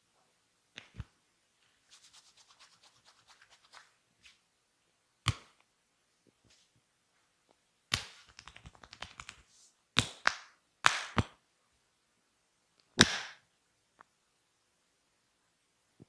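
Hand slaps on bare, oiled skin during a massage: several loud, sharp smacks, with two quick runs of lighter rapid pats in between.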